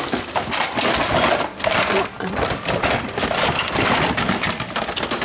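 Continuous rustling with rapid, busy clattering as small toys are handled and sorted.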